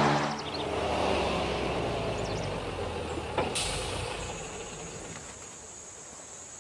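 Delivery step van rumbling to a stop, ending with a click and a short hiss of air about three and a half seconds in. After that a steady high insect drone remains, with a few faint bird chirps.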